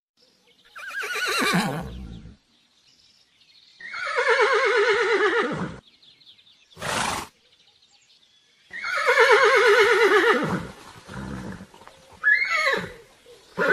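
Horse neighing: three long whinnies with a quavering pitch, the first falling steeply, with a short noisy burst between the second and third and shorter calls near the end.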